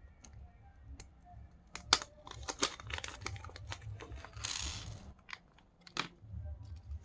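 Sharp clicks and taps of small spinning-reel handle-knob parts (knob, washer, bearing) being handled and set down. There is a brief rustling scrape about four and a half seconds in.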